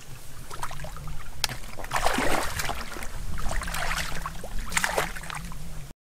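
Shallow muddy water splashing and sloshing as hands grope and dig in a rice-field ditch for catfish, with two louder splashes about two seconds and about five seconds in. A low steady hum runs underneath, and the sound cuts out briefly at the very end.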